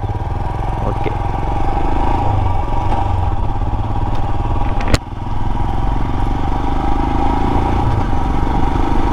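Royal Enfield Himalayan's 411 cc single-cylinder engine pulling away from low speed, getting louder over the first couple of seconds, then running steadily. About five seconds in there is a sharp click, and the engine note dips briefly before picking up again.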